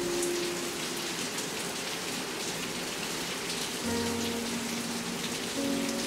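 Steady rain falling on surfaces outdoors, a dense hiss flecked with pattering drops. Soft background music of long held notes sits underneath, with new notes entering about four seconds in and near the end.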